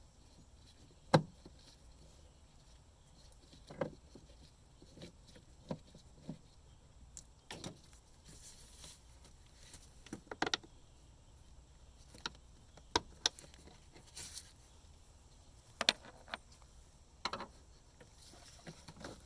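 Irregular clicks, knocks and short scrapes of hand tools and the plastic air filter housing being worked on, as fasteners are taken out before the housing is lifted off.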